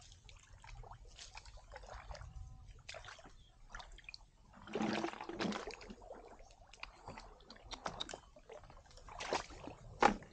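Shallow muddy water sloshing and splashing as hands grope along the bottom and legs wade through it, in irregular bursts: a louder stretch about five seconds in and one sharp splash near the end.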